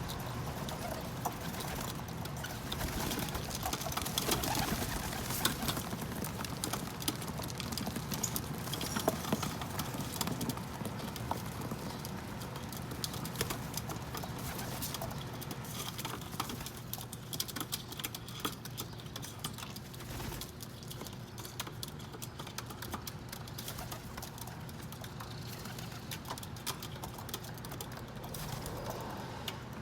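Pigeons cooing while pecking at sunflower seeds, a dense patter of small taps and clicks that thins out in the second half.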